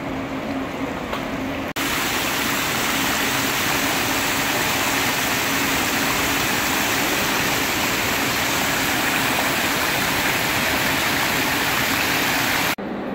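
A steady hum with quiet hall noise, then about two seconds in a loud, even rush of water cascading down from an indoor pool's water-play structure and splashing onto the pool surface; it cuts off a little before the end, leaving the hum again.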